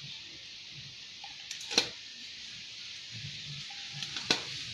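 Hand pop-rivet gun squeezed on the end cap of a stainless-steel racing muffler, setting a rivet: two sharp snaps about two and a half seconds apart, the first a little louder.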